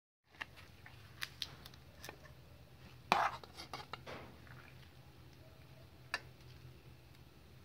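A spoon and dishes clinking and scraping on a metal tray and bowl in a few scattered clicks, with a louder scrape about three seconds in and one more clink about six seconds in.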